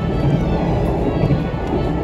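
Background music with a steady low rumble underneath.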